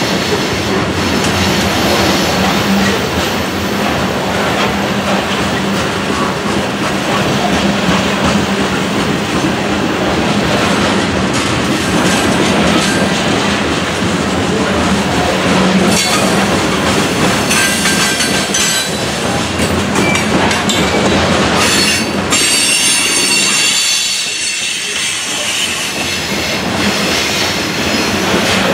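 Freight train of covered hopper cars rolling steadily past, a continuous rumble of steel wheels on rail with clatter over the joints. About three quarters of the way through a high-pitched wheel squeal comes in for a few seconds.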